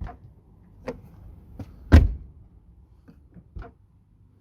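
Toyota Celica ST185 car door latch and handle being worked: a few separate sharp clunks and clicks, the loudest about two seconds in.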